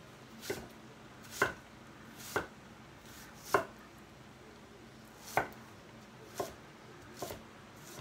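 Knife chopping red onion on a wooden cutting board: seven separate knocks of the blade on the board, roughly one a second and unevenly spaced.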